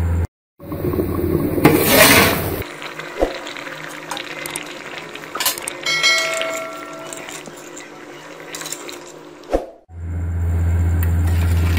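Edited-in sound effects: a loud rushing whoosh lasting about two seconds, then a quieter stretch with a short ringing chime about six seconds in, typical of a subscribe-button and bell animation. A steady low hum comes back near the end.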